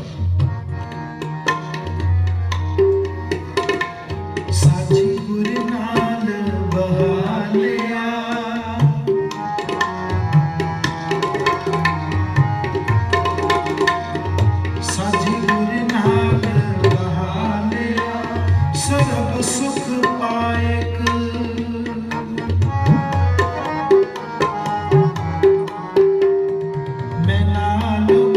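Tabla playing in a kirtan accompaniment, the bass drum's pitch sliding up and down under sustained melodic tones, with no clear singing.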